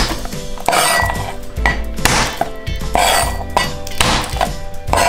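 A utensil clinking and scraping against a mixing bowl in repeated, uneven strokes as the marinade is stirred, over steady background music.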